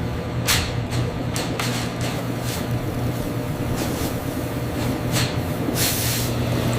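Steady low machinery hum with several short, sharp hisses, the longest near the end, like air or steam being vented from processing equipment.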